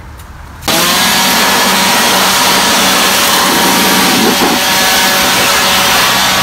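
An electric air-moving tool (blower or shop-vacuum type) switches on about half a second in and runs steadily, a loud rush of air over a constant motor hum, as its tube is worked over a dirty kerosene heater's casing.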